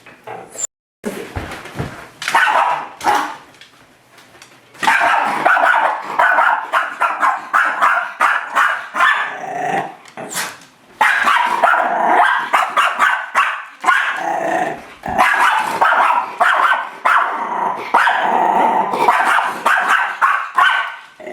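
Miniature schnauzer barking and growling at its own reflection in a mirror: a few scattered barks, then from about five seconds in long, rapid, almost unbroken runs of barking, with one short break midway.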